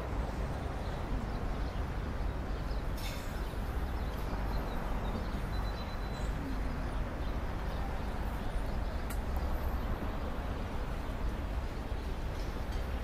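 Steady low background rumble with a few brief clicks.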